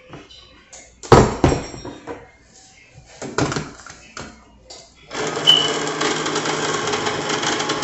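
Metal cans knocked and clattered as they are handled, then about five seconds in an electric can opener's motor starts and runs steadily.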